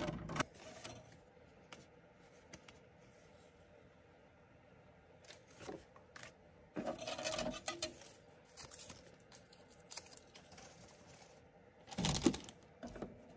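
A metal die-cutting plate and a plastic plate being lifted off cut cardstock and set down on a cutting mat: scattered metallic clinks and clatters with paper being handled, the loudest clatter near the end.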